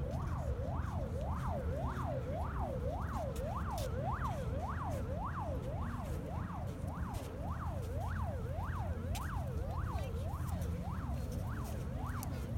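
A siren wailing in a fast, even up-and-down sweep, nearly two cycles a second, each rising and falling between a low and a high pitch, over a steady low rumble.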